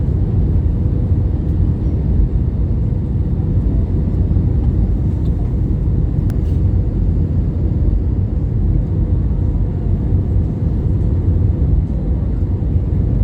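Steady low rumble of an airliner in flight: engine and airflow noise heard from inside the passenger cabin.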